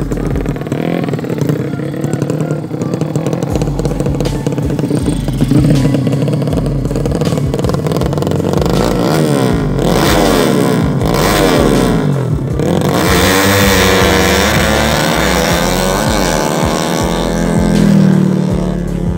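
Motorcycle engines running on the road. About halfway through, several engine notes rise and fall across one another as the bikes rev and accelerate.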